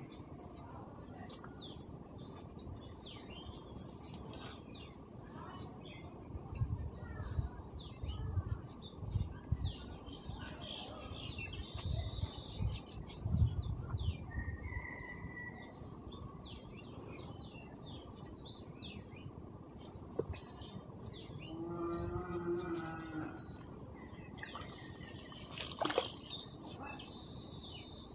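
Small birds chirping throughout, with a cow mooing once, a call of about a second and a half, about two thirds of the way in. A few dull low thumps come in the first half.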